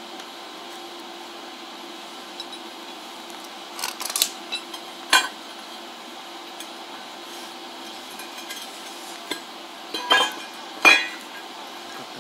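Sharp metallic clinks and knocks of steel bars being struck with a hammer and handled: a cluster of hits about four seconds in and two louder ones near the end, over a steady low hum.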